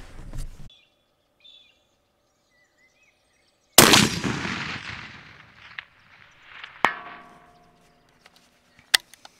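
A .300 PRC rifle fired once with its muzzle brake fitted: a sharp, loud shot about four seconds in that echoes away over two to three seconds. About three seconds after the shot, a faint ringing clang comes back from the bullet striking the steel gong at 784 yards.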